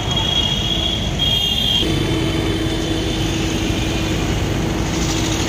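An engine running steadily close by, a continuous low rumble. A thin high whine stops about two seconds in, and a steady lower hum carries on after it.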